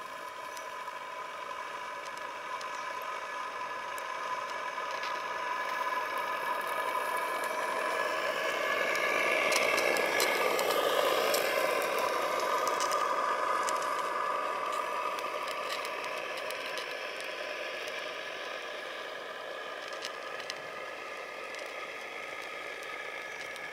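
Steam launch's engine running steadily as the boat passes close by, growing louder to a peak about ten seconds in and then fading as it moves away.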